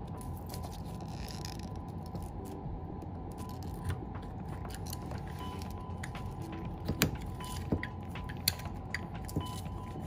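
Small clicks and rattles of hands handling a reloadable Super 8 film cassette and a strip of film, with a few sharper clicks in the second half, over a steady low hum.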